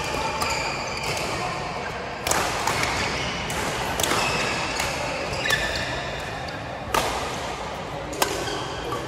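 Badminton rackets striking a shuttlecock during a rally: sharp, irregular hits a second or more apart over a steady background din.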